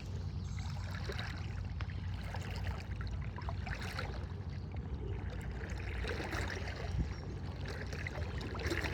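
Floodwater sloshing and swirling around the legs of a person wading through a flooded river, with small irregular splashes over a steady rush of moving water.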